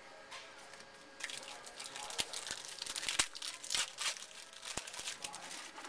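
A trading-card pack and its cards crinkling and crackling in the hands as they are handled. The sharp crackles start about a second in and come in a dense run.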